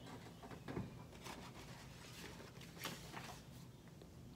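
Faint rustling and a few light scrapes and ticks of paper being handled: the cover sheet lifted off a heat-pressed onesie and the printed transfer sheet picked at with fingertips to peel it.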